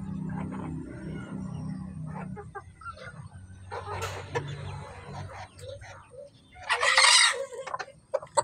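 A flock of bantam chickens feeding, with low clucking in the first couple of seconds and scattered short calls after. About seven seconds in comes one loud, harsh call, the loudest sound here.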